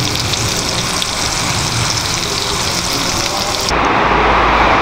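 New York strip steak searing in hot butter and oil, a steady sizzle. About three-quarters of the way through it cuts off abruptly and gives way to a duller, lower steady noise.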